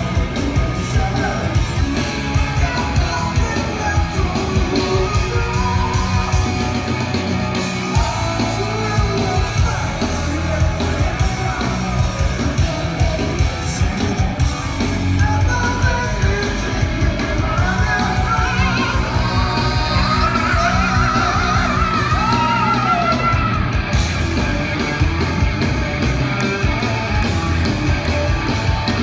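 Live rock band playing: a male lead singer over electric guitar, bass guitar and drums.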